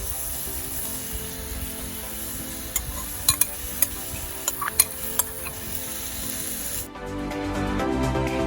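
Chopped onion and carrot sizzling steadily in hot oil in a pan while being stirred, with a handful of sharp clicks of the spatula against the pan about three to five seconds in. Background music cuts in near the end.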